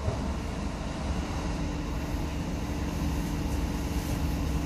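Inside a Stadtbahn light-rail car under way: steady running rumble with a faint, even hum over it.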